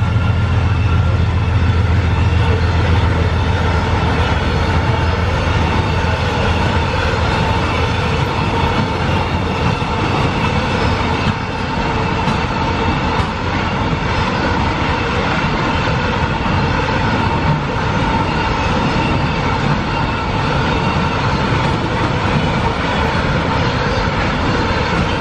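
Freight train passing close by: a deep diesel engine hum from the locomotives in the first two seconds, then a long string of container wagons rolling past steadily.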